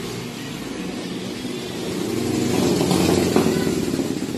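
Old electric water pump motor running noisily, swelling louder about three seconds in.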